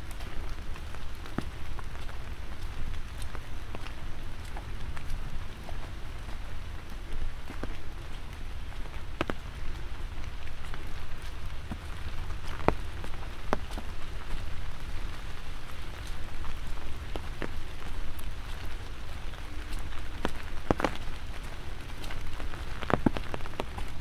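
Light rain falling, with individual drops ticking close by at irregular moments over a low, steady rumble.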